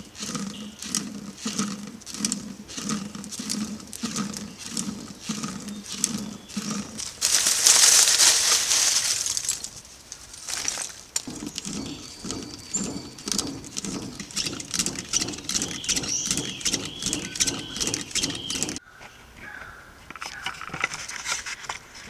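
Hand-turned blower, a bark-bladed rotor spinning in a mud housing, whooshing in low pulses about twice a second as it drives air into a charcoal furnace, with the burning charcoal crackling and popping. About a third of the way in there is a louder rushing hiss for about two seconds. Near the end the pulsing stops abruptly and only the crackling remains.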